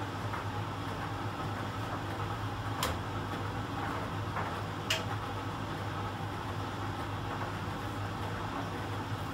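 Miele Professional PT 7186 XL commercial tumble dryer running in its drying phase: a steady low hum from the drum motor and heating blower as the drum tumbles a load of rags. Two sharp clicks, about three and five seconds in.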